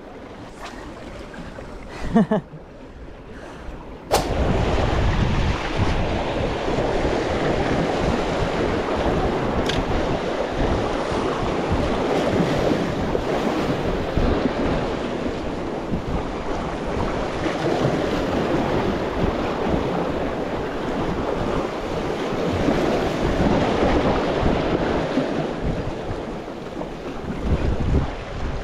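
Wind buffeting the microphone over waves breaking against concrete breakwater blocks. A sharp click about four seconds in, after which the wind and surf noise is loud and steady.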